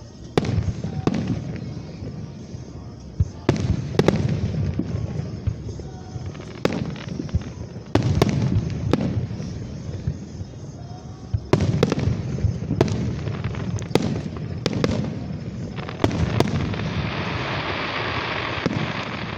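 Aerial fireworks going off: a dozen or more sharp bangs spread through the stretch, some in quick pairs, each trailed by a low rumbling echo, with a denser noisy spell near the end.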